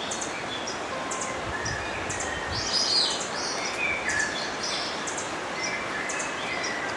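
Steady rush of river water with several birds chirping and calling over it in short high notes, with a louder flurry of chirps about two and a half seconds in.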